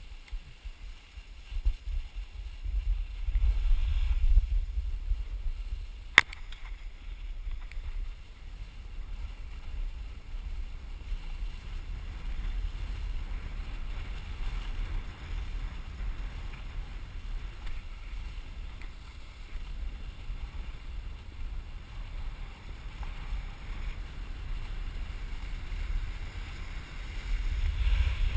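Wind buffeting a helmet-cam microphone during a descent of a groomed ski piste: a low, uneven rumble, stronger for a few seconds near the start and again near the end, over a faint hiss of snow sliding underneath. One sharp click about six seconds in.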